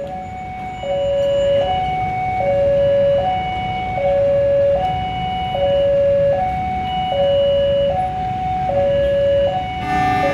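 Railway level-crossing warning alarm sounding a steady electronic two-tone ding-dong, a higher and a lower tone alternating about every 0.8 seconds, the signal that a train is approaching the crossing. Just before the end a richer, many-pitched tone joins in.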